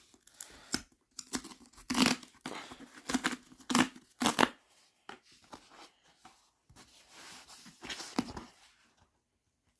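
A parcel's packaging being torn open by hand. There are several sharp rips in the first few seconds, then softer rustling and crinkling, which stops shortly before the end.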